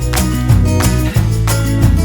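Background music: a track with guitar and a steady beat.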